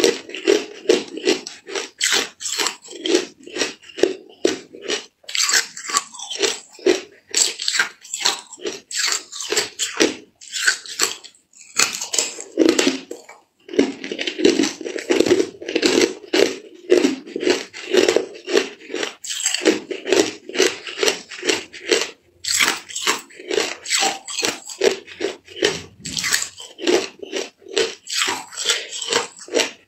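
Clear hard ice being crunched and chewed in the mouth: dense, rapid crunching with a couple of short pauses.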